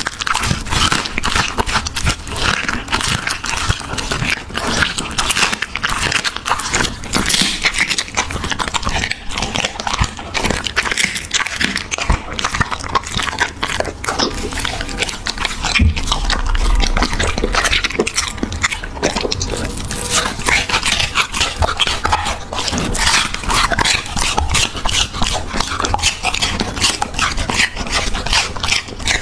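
Dog chewing and crunching raw chicken and apple close to a microphone: a dense, irregular run of crunches, wet smacks and licks.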